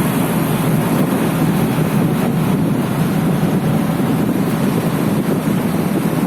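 Steady, loud low rumbling noise that holds unchanged throughout, like an engine or wind buffeting a microphone.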